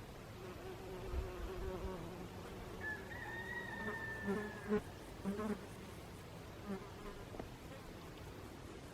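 A flying insect, bee or fly, buzzing with a steady hum that fades in and out. About three seconds in, a single long, slightly falling high call sounds in the distance, followed by a few soft knocks.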